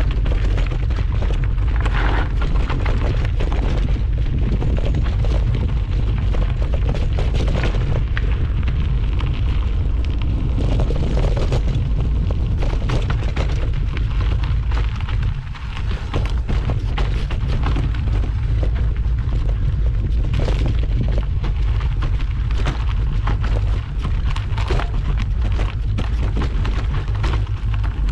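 Mountain bike descending a rough trail: steady wind buffeting on the microphone as a heavy low rumble, with the bike rattling and clattering over bumps throughout. The rumble dips briefly about halfway through.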